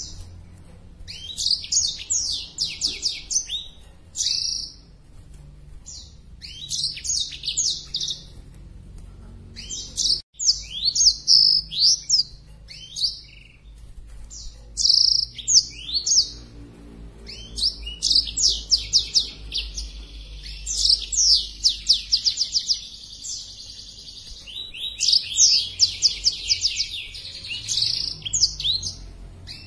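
Male black-throated canary singing a fast, chattering song of quick down-slurred notes in bursts with short pauses, breaking into longer unbroken runs in the second half: the full song of a bird in breeding condition.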